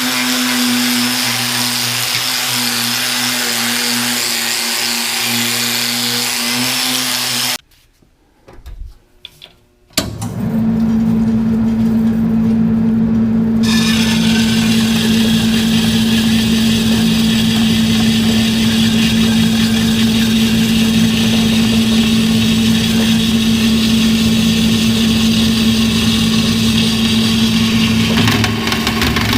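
An electric power tool running steadily, shutting off about seven and a half seconds in. After a short pause with a few small clicks, a power tool starts again and runs steadily to the end.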